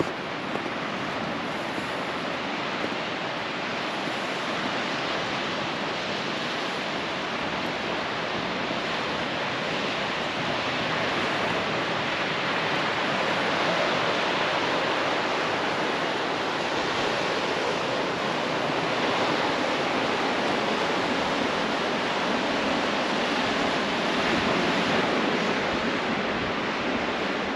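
Ocean surf washing onto a beach: a steady rush of noise that grows a little louder partway through.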